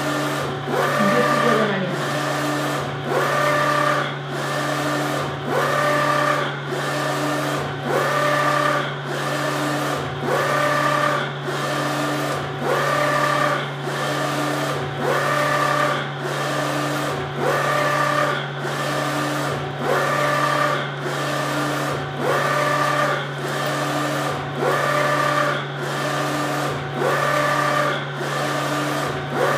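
UV flatbed printer printing: the print-head carriage shuttles back and forth along its rail, its drive whirring up and down in a regular cycle about every two seconds, over a steady low hum.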